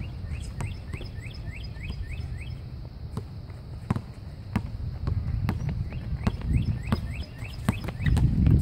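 A basketball bouncing on an outdoor asphalt court, with irregular thuds and scuffs of players' footsteps. A bird sings two quick runs of downward-slurring chirps, one at the start and one near the end, over a low rumble.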